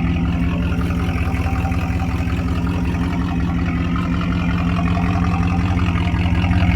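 1982 Pontiac Trans Am's 5.0-litre V8 idling steadily on fresh oil after an engine flush, running evenly without clicking or clattering. It grows a little louder near the end.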